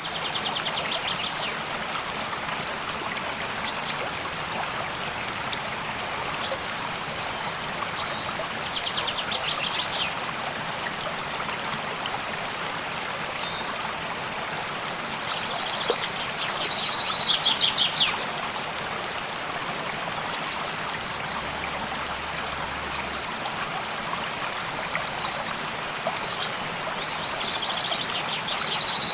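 A small stream running steadily, with songbirds calling over it. A bird's quick trill of rapid notes comes about every eight seconds, with short single chirps in between.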